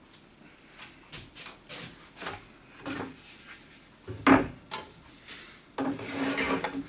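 Wooden workshop parts being handled: a string of light knocks and clicks, one loud knock about four seconds in, then about a second of scraping, wood sliding against wood, near the end.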